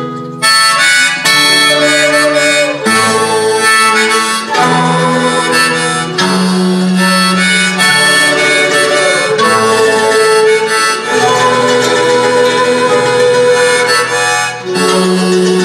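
Andean folk ensemble playing an instrumental passage: a sustained wind-instrument melody over strummed guitar and charango. The music comes in about half a second in.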